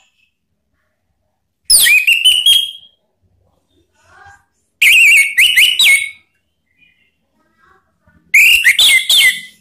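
Orange-headed thrush singing: three loud song phrases, each about a second long, mixing clear whistles, sliding notes and quick chattering notes, coming about every three seconds.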